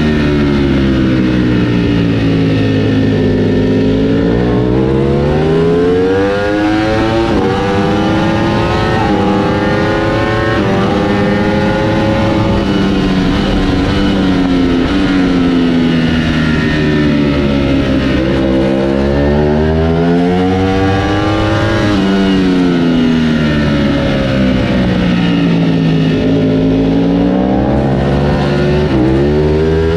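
Ducati Panigale V4 S engine at full track pace, heard from onboard with wind noise: the revs climb under hard acceleration, then fall away under braking and downshifts for the corners, three or four times over.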